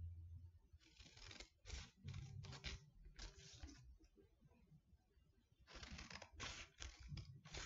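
Scissors snipping through a folded sheet of paper, faint, in two runs of short cuts: one from about a second in to three and a half seconds, another from about six seconds in to near the end.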